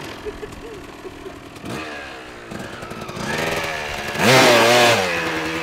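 Motocross dirt bike engine being revved, its pitch climbing from about three seconds in to a loud, wavering peak a little past four seconds, then easing to a steadier note.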